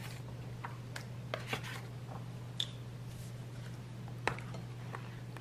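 A few light clicks and taps of tableware and a plastic takeout sushi tray being handled, over a steady low hum.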